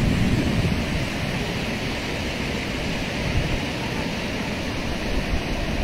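Steady rush of river water pouring over the crest of an anicut, a low weir across the river.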